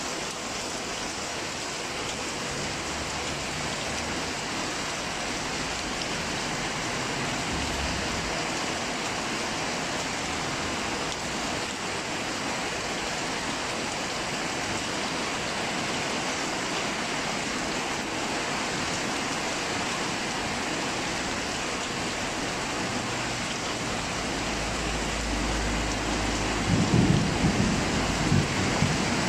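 Heavy rain falling steadily in a thunderstorm. A low rumble of thunder builds near the end.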